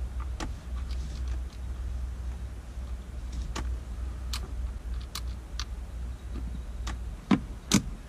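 Scattered sharp plastic clicks and taps as a dashcam and its magnetic ball mount are handled and fitted against the windshield, the two loudest clicks coming near the end, over a steady low hum.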